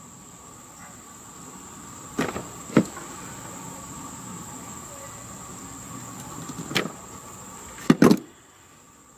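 Hand wire strippers clicking shut on a thin wire and pulling its insulation off: single sharp clicks about two, three and seven seconds in, and a louder double click near eight seconds. A steady high-pitched whine runs underneath.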